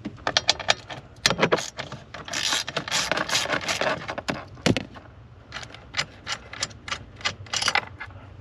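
Ratchet wrench clicking as a 10 mm bolt is loosened, in short runs of sharp metallic clicks with a rougher rattling stretch in the middle and a run of about three or four clicks a second near the end.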